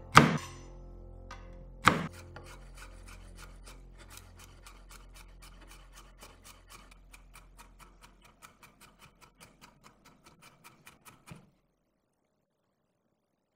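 Garlic cloves smashed under the flat of a chef's knife on a wooden cutting board, two loud thumps, followed by rapid, even knife chopping on the board, about five strokes a second, as the garlic is finely minced; the chopping grows fainter and stops suddenly near the end.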